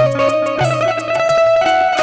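Instrumental interlude of a Hindi devotional bhajan: a melody instrument plays held notes over tabla strokes.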